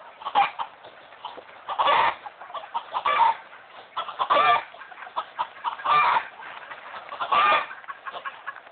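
Chickens clucking, with a short loud call roughly every second and a half and softer clucks in between.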